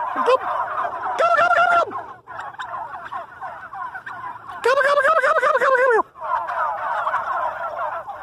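A large flock of white domestic turkeys calling continuously, with the toms gobbling in loud group bursts twice, about a second in and again about five seconds in.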